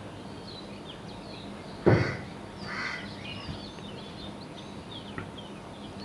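Bird calls over a faint steady background: one loud call about two seconds in, a softer one just after, and faint short chirps of small birds.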